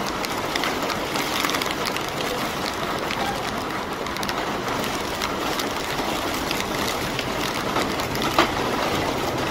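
Rain falling on an umbrella: a steady hiss dotted with many small drop ticks, over the rumble of city street traffic, with one sharper tap near the end.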